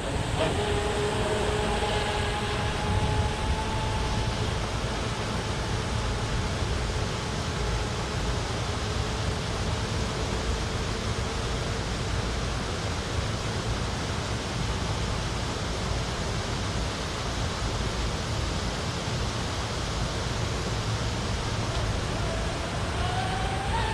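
A steady rushing noise, with the high whine of an electric RC catamaran's motors. The whine falls slowly in pitch and fades over the first half as the boat runs away.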